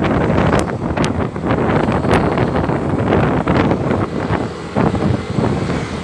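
Wind buffeting the microphone of a camera riding on a moving motor scooter: a dense rushing noise that swells and dips, with scattered sharp crackles.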